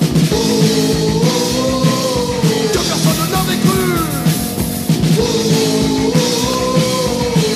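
Punk rock recording: a full band with drums under a melody that rises and falls in repeated phrases of about two and a half seconds.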